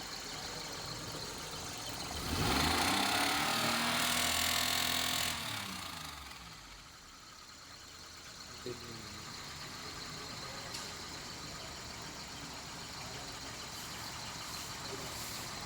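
Suzuki Mehran's three-cylinder petrol engine running with a crank knock, the sign of a worn, undersize crankshaft. It is revved once about two seconds in, held for about three seconds, then drops back to idle.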